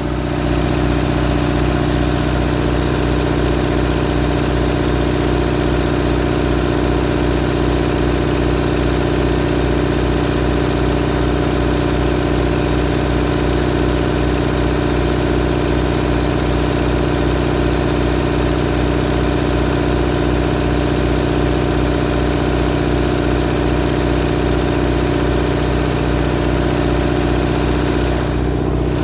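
1965 Owens generator's engine running steadily at a constant speed, fuelled by a mix of oxyhydrogen (HHO) and compressed hydrogen gas.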